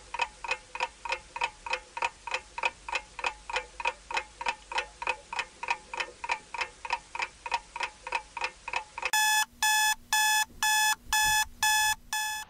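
Clock ticking steadily, about three to four ticks a second. About nine seconds in, an electronic alarm clock goes off with loud beeps in short pulses, about two a second.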